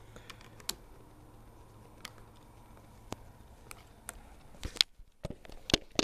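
Scattered small clicks and taps from hand work on a Samsung Galaxy S2's opened case as its camera module is eased out, with a few clicks in quick succession near the end, over a faint steady low hum.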